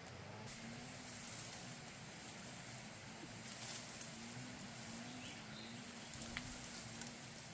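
Leaves, stems and grass rustling and snapping faintly as someone picks foliage and pushes through dense undergrowth, with a faint low wavering hum underneath.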